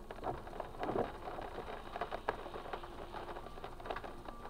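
Rain pattering on a car's roof and windshield, heard from inside the cabin: a steady haze of many small taps.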